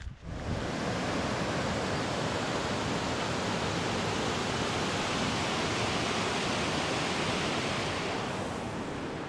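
Steady, loud rush of flowing water from a creek or waterfall. It starts abruptly about half a second in and eases slightly near the end.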